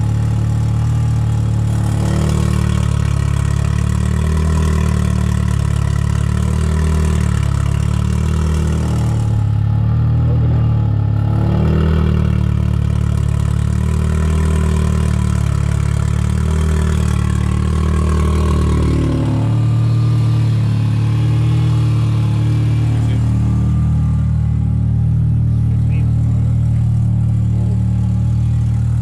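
Big-turbo Mitsubishi Lancer Evo 4G63 four-cylinder idling loudly through a side-exit exhaust just ahead of the front wheel, at its first start-up after the build and not yet mapped. The note swells and eases every second or so and shifts a little about two-thirds of the way through.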